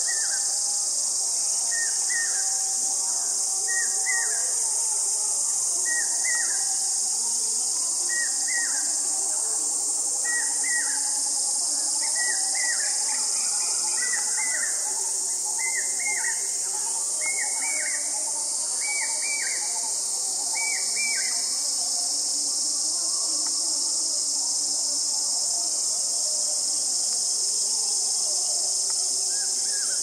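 Steady high-pitched insect drone, with a bird repeating a short call of two quick falling notes about every two seconds, growing louder and stopping about two-thirds of the way through.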